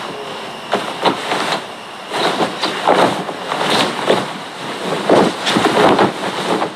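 Blanket and bedding rustling as people shift and tug the covers in bed, in irregular bursts of rustle and shuffle.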